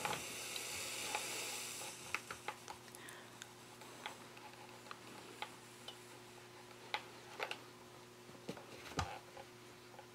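Steam iron hissing for about the first two seconds as it presses folded cotton fabric, then faint scattered clicks and taps as the iron is pushed and shifted over the fabric.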